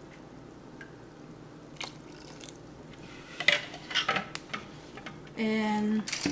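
Light clatter of plastic measuring spoons and kitchen utensils being handled on a granite countertop: a single click, then a quick cluster of clicks and knocks a little past the middle.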